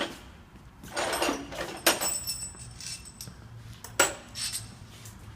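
Three short knocks or clatters, about a second, two seconds and four seconds in, over a faint steady low hum.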